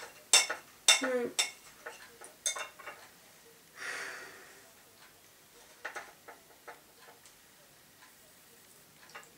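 Metal knife and fork clicking and scraping against a ceramic plate while cutting fruit, with sharp clicks loudest in the first second and a half, then fainter scattered clicks.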